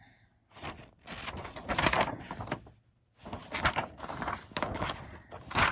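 Paper sheets rustling and crinkling as they are handled and set aside, in two spells with a short pause about three seconds in.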